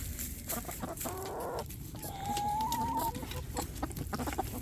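Domestic hens clucking in the coop, with a drawn-out call lasting about a second midway through and scattered scratching and rustling sounds.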